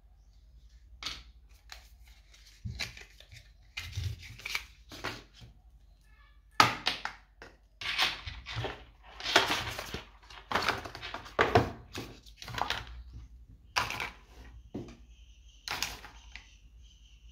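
Unboxing handling noise: a string of rustles, crinkles and soft thunks as a phone charger brick, its USB cable and the cardboard box parts are picked up, unwrapped and set down on a desk. It is busiest and loudest through the middle.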